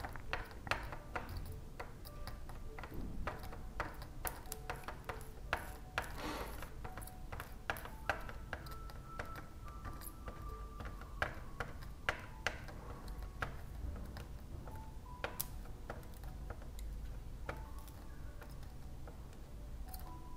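Scattered light clicks and a few short, faint pings from small tools and parts being handled on a workbench, over a low steady hum.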